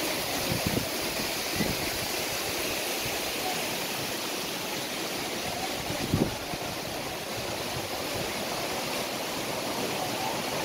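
Steady rushing of a river and waterfall, an even roar of water, with a few short low bumps, the loudest about six seconds in.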